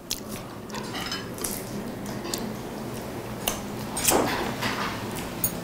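Cutlery and dishes clinking at a meal table: scattered sharp clicks and taps, with a louder clatter just after four seconds in.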